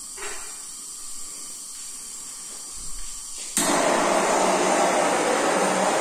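Handheld gas torch: a faint hiss, then about three and a half seconds in the flame comes on suddenly with a loud, steady hiss.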